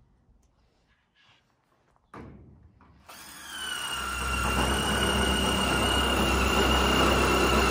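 Cordless drill driving a screw through corrugated steel wall sheeting into the steel carport frame. After a short knock, the drill starts about three seconds in and runs under load with a steady whine and a low rumble.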